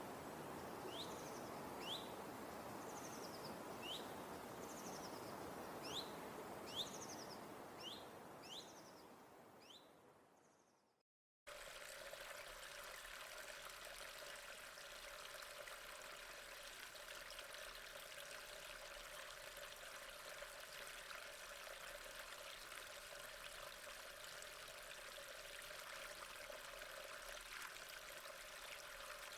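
A songbird repeats a short, sharp chirp about once a second over a steady rushing background, fading out after about ten seconds. After a second of silence, a steady flow of water, like a stream trickling, runs to the end.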